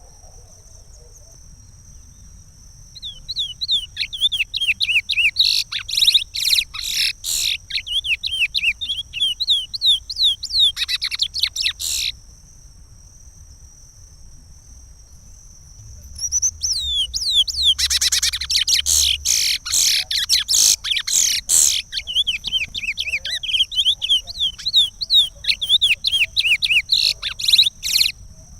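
Curió (chestnut-bellied seed finch) singing the Pará regional song type in two long bouts of fast, rising and falling whistled notes, about four seconds apart.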